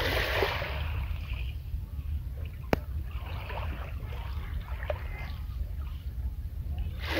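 Small waves lapping and washing over a pebble beach, with a hissing wash near the start and fainter ones in the middle, over a steady low rumble. A single sharp click sounds a little under three seconds in.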